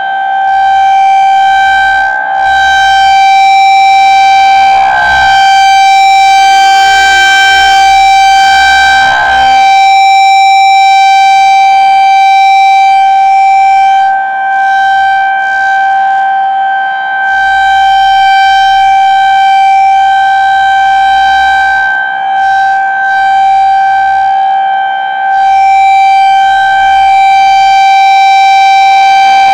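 Federal Signal 2001-SRN single-tone electromechanical outdoor warning siren sounding a steady, very high-pitched and loud tone for its scheduled monthly test. The pitch holds level while the loudness dips briefly now and then.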